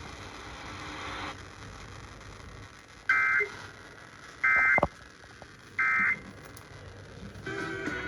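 Emergency Alert System End of Message signal: three short two-tone digital data bursts about 1.4 seconds apart, marking the end of the alert. They sit over faint radio hiss, with a brief falling tone during the second burst.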